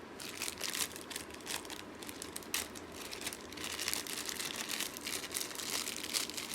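Plastic packaging crinkling with irregular crackles as small accessories are handled and taken out of their bags.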